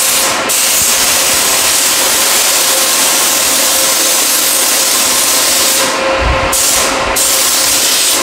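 Compressed-air paint spray gun hissing steadily as it lays a coat of paint on an engine block. The spray stops briefly just after the start and twice about six and seven seconds in.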